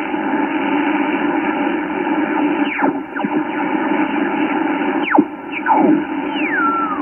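Yaesu FTDX10 HF transceiver receiving 20-metre band static as its VFO dial is tuned up through the band, with single-sideband signals sliding past as a handful of whistles falling in pitch. The last one glides down and settles near the end.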